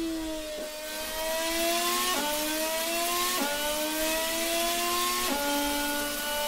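Mercedes-Benz 2014 Formula One turbocharged 1.6-litre V6 development engine accelerating through the gears. Its pitch climbs steadily in each gear and drops sharply at four upshifts, and the climb slows with each higher gear.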